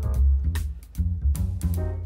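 Instrumental background music: a low bass line stepping from note to note under regular percussion hits.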